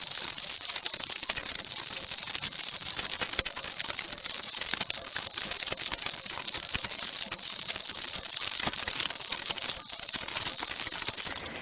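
A shaman's brass ritual bell cluster (mugu bangul) shaken rapidly and continuously to call down the spirits' message, as a dense, loud, high jingling shimmer that stops abruptly near the end.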